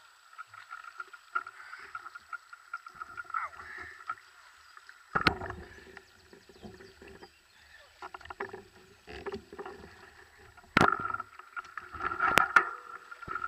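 Shallow creek water running and burbling over stones, with a few sharp knocks on top.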